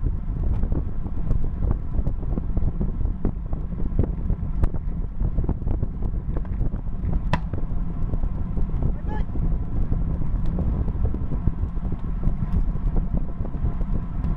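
Wind buffeting the microphone of a bicycle-mounted camera while riding at road speed, a steady low rumble with frequent small clicks and rattles from the bike on the path surface. A short high tone sounds about seven seconds in, and a brief rising chirp follows about two seconds later.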